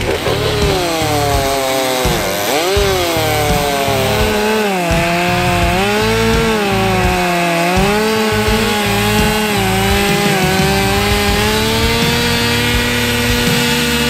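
Two-stroke chainsaw running at high speed and cutting into a pine trunk. Its engine pitch dips and recovers several times as the chain bites into the wood, then holds steadier and climbs a little near the end.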